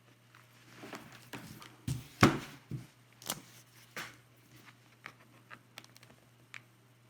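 Plastic guitar pick prying at the coin-cell battery clip inside a Logitech K750 keyboard: scattered small plastic clicks and scrapes, with the loudest knock about two seconds in and fainter ticks after.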